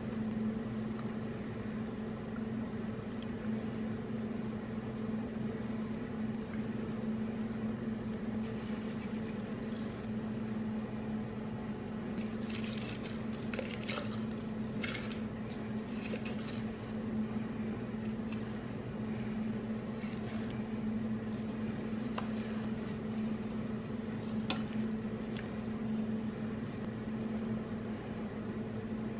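Hands working a raw whole chicken in a roasting pan, making soft wet squishing and handling noises that come in short clusters, busiest from about twelve to seventeen seconds in. A steady low hum runs underneath.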